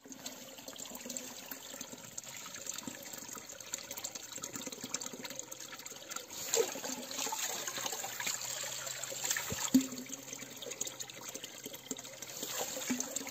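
Water running steadily through a shallow concrete channel while a military boot steps and sloshes in it, with sharper splashes about six and ten seconds in.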